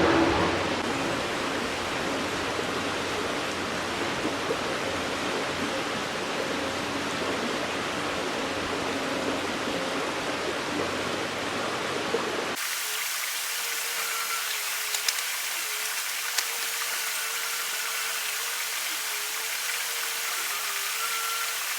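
Steady rush of stream water. About halfway through it cuts off sharply into a thinner, hissier water noise with a faint wavering hum and a few light clicks.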